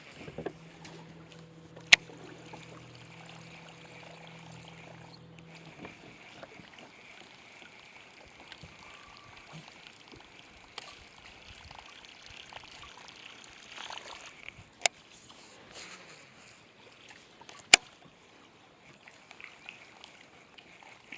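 Faint water trickling and lapping around a fishing boat on a lake, with a low steady hum that stops about six seconds in and three sharp clicks, about two, fifteen and eighteen seconds in.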